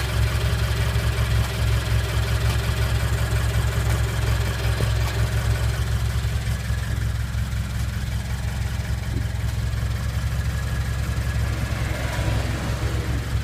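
Subaru BRZ's flat-four boxer engine idling after a start-up, with a light rattling ('karakoro karakoro'). The rattle becomes quiet when the clutch is pressed in neutral and fades as the engine warms up, which points to a rattle in the clutch/drivetrain side rather than in the engine itself. The rattle grows fainter about halfway through.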